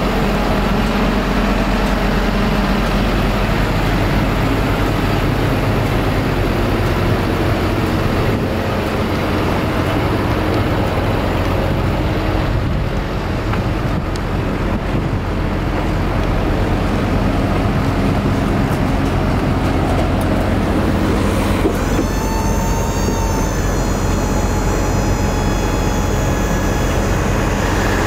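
Diesel engine idling steadily with a low, even rumble. About three-quarters of the way through, a higher whine joins it and holds.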